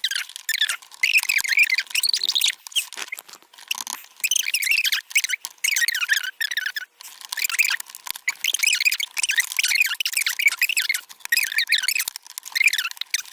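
A voice played back at high speed, turned into high-pitched, squeaky chipmunk chatter in quick phrases with short gaps between them.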